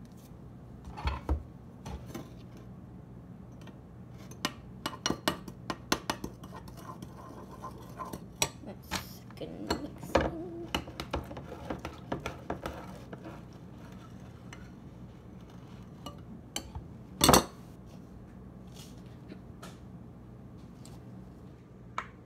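A utensil clinking and knocking against a bowl as baking soda is mixed into a conditioner slime base, with a run of quick clicks through the middle and one louder knock near the end.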